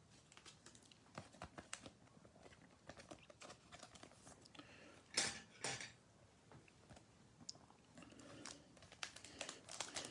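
Faint handling of trading cards and their packaging: scattered soft clicks and rustles, two sharper clicks about five seconds in, and foil pack wrapper crinkling toward the end.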